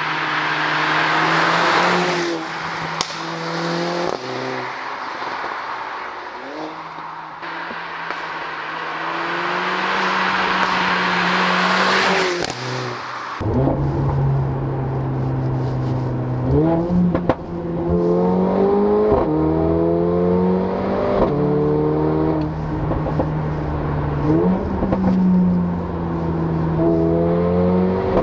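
Mercedes-AMG CLA 45 Shooting Brake's turbocharged four-cylinder heard from the roadside as the car drives past, the exhaust and road noise swelling and fading. From about 13 seconds in it is heard from inside the cabin under hard acceleration, the engine pitch climbing and dropping back at each of several quick upshifts.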